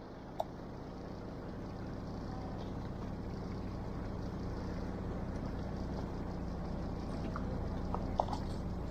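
A fishing boat's engine running steadily at low revs, a low hum over the wash of water, fading in during the first couple of seconds. A few faint small clicks sound near the end.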